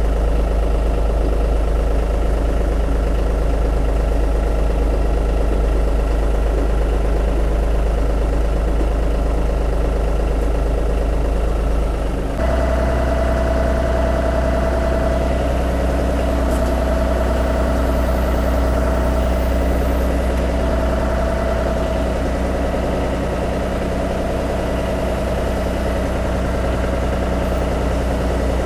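A John Deere tractor's diesel engine running steadily while the tractor moves a load on its front loader. About twelve seconds in, the sound changes abruptly and a steady whine joins the engine sound.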